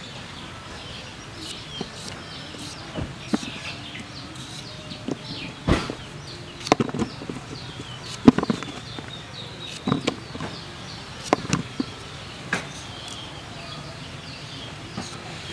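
A kitchen knife slicing fresh cucumbers held in the hand into strips, giving a series of irregular crisp cuts as the pieces drop into a plastic bowl. Faint chirping in the background.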